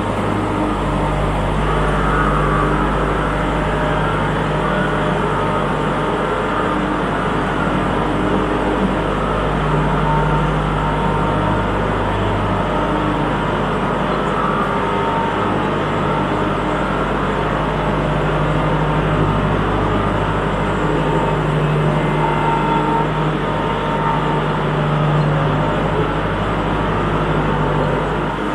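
Kubota MX5400 tractor's four-cylinder diesel engine running steadily under load while the tractor drives across a dirt floor, grading it with a rear blade.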